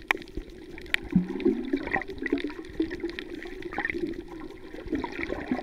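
Underwater water sound picked up by a camera held below the surface: muffled gurgling and bubbling, with a few sharp clicks, two of them about a second apart near the start.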